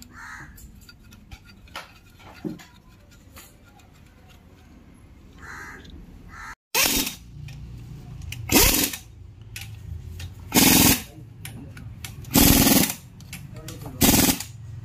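Pneumatic impact wrench run on bolts in short rattling bursts, about five of them roughly two seconds apart in the second half, after a quieter stretch of light clicks and knocks from tools being handled.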